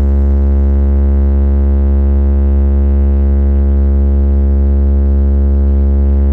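A carnival sound system ('sound horeg') plays a loud, steady deep bass drone, one held low tone with a rich buzz of overtones and no beat.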